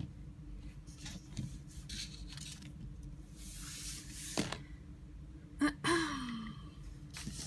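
Faint scattered taps and clicks of small plastic toy figures being set down on a tabletop. A breathy exhale comes in the middle, and a short murmured voice sound about six seconds in.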